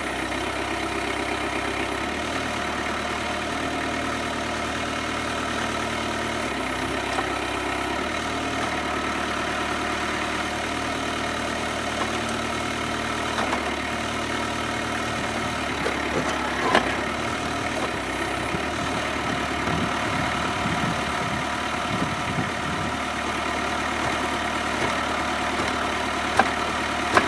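Kubota B7800 tractor's three-cylinder diesel running steadily under load, driving a three-point-hitch PTO post-hole auger that bores into the ground. Clattering knocks come about two-thirds through, and a few sharp knocks near the end, which the operator takes for the auger hitting a rock.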